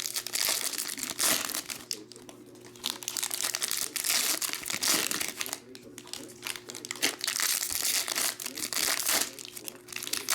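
Foil trading-card pack wrappers crinkling and tearing as packs are ripped open and cards handled, in irregular bursts with short pauses between them.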